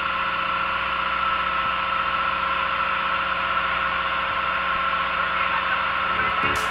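Boat engine running steadily while the boat is under way: a constant drone with a steady hum, with wind noise.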